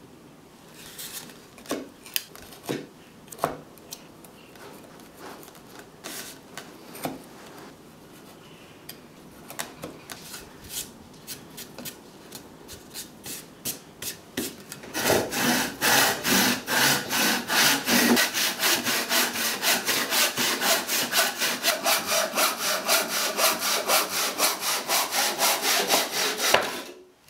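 Scattered light ticks and scrapes of a chisel being set into a knife line in a pine 2x4. Then, about halfway through, a tenon saw begins cutting across the board in quick, even back-and-forth strokes, which stop just before the end.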